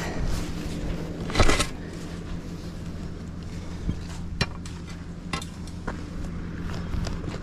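Metal clinks and clanks: one louder clank about a second and a half in, then a few lighter clicks, over a steady low hum.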